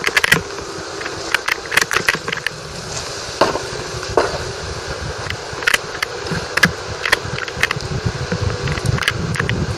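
Riding noise along a street: sharp clicks and rattles, many of them irregular, over a steady rushing noise. The clicks come from a wire mesh basket and the vehicle's frame jolting over the road surface.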